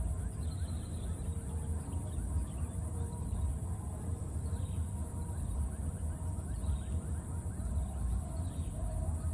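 Outdoor ambience: a steady high drone over a low rumble, with faint, scattered short animal calls.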